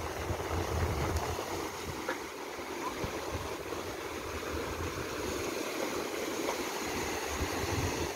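Surf washing up a sandy beach, a steady rush, with wind buffeting the microphone near the start and again near the end.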